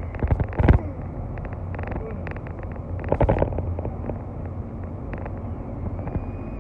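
Steady low rumble of a car driving, heard from inside the cabin, with two short louder bursts of clicks and noise about half a second and three seconds in.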